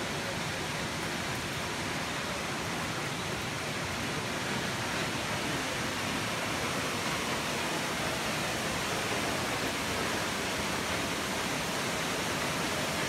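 A waterfall rushing steadily, an even wash of falling water.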